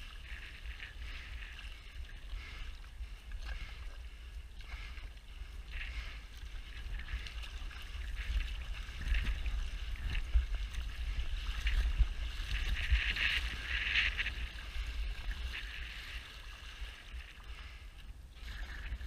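Water rushing and splashing along the hull of a one-person outrigger canoe as it is paddled through chop, with a low wind rumble on the microphone. The rush of water swells louder about two-thirds of the way through.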